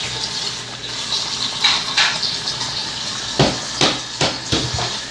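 A pot of crab and shrimp in coconut milk boiling hard, bubbling with a steady hiss, with about six short, sharp pops or knocks through the middle and second half.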